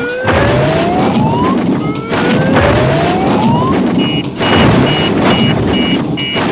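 Dump-truck sound effect: a noisy engine with a whine that rises in pitch twice, as of the bed tipping, then a reversing beeper sounding about twice a second from about four seconds in.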